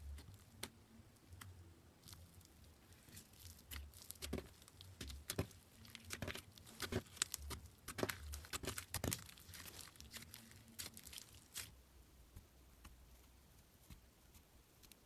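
Soft slime being pressed and squished by fingers, giving faint crackling and popping clicks that are densest in the middle and thin out near the end.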